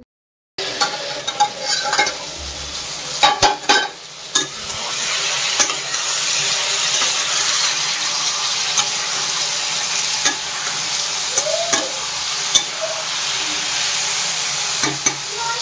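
Mixed vegetables (potato and okra) frying in oil in a steel kadai with a steady sizzle. For the first few seconds a metal spatula knocks and scrapes against the pan, with occasional clicks from stirring after that.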